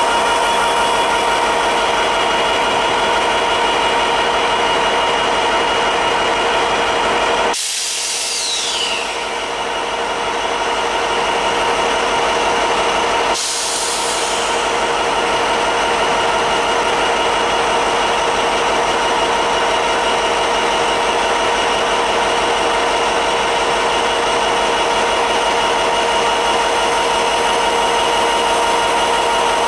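EMD diesel-electric locomotive running at a standstill: a steady engine drone under a constant mechanical whine. The sound changes abruptly about a quarter of the way in, with a brief falling squeal, and again shortly before halfway.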